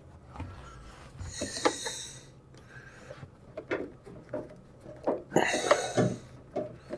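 The rubber door seal of a Whirlpool front-loading washer being pressed and worked into place by hand: scattered rubbing, soft knocks and clicks, with two longer breaths through the nose, about a second in and again near the end.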